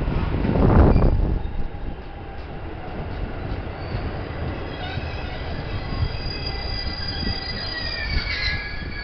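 211 series 3000 subseries electric multiple unit running into a station platform. A loud rumble rises as the front car passes in the first second or so, then the cars roll by with a lower running noise. High thin wheel squeals build from about halfway through.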